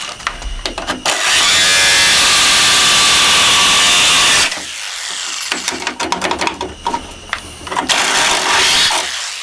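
Corded Ryobi jigsaw with a metal-cutting blade sawing through a car's sheet-metal hood. It makes one continuous cut of about three and a half seconds, then short stop-start bursts and clicks as the saw is worked around the curve, and another loud run near the end.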